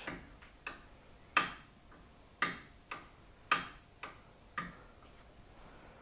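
Loose anti-roll bar drop link knocking as it is worked by hand, a sign of a worn or loose drop link. It gives a string of sharp knocks about a second apart, the loudest about one and a half seconds in, with fainter clicks between.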